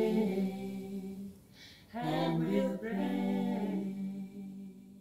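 Unaccompanied a cappella singing closing a song: a held note fades out, then a final sung phrase comes in about two seconds in, is held, and fades away near the end.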